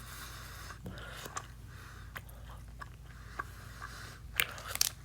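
Close-up chewing of a soft filled gummy candy: scattered mouth clicks and smacks, with a few louder clicks near the end, over a steady low hum.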